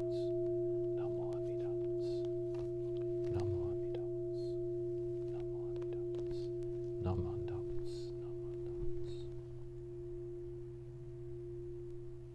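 A large Buddhist bowl bell (kin) rings on in one steady, slowly fading tone after being struck. Light knocks and rustles come about three and seven seconds in.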